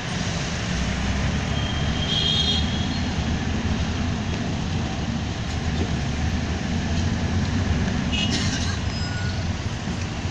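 Busy city street traffic: a steady rumble of engines from motorcycle taxis, cars and minibuses passing. Two brief high-pitched sounds break through, about two seconds in and again around eight seconds.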